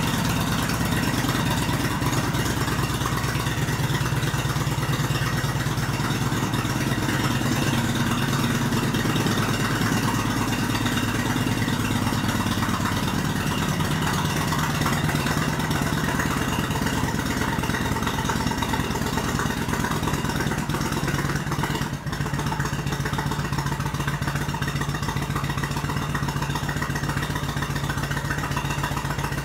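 Kawasaki VN800 Vulcan's 805 cc V-twin idling steadily through debaffled Remus aftermarket exhaust pipes, with one brief dip in level about three-quarters of the way through.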